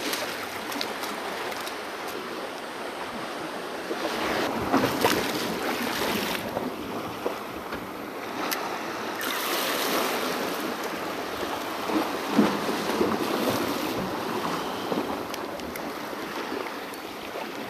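Small harbour waves washing and splashing against a rock ledge, with wind on the microphone and a few brief handling clicks.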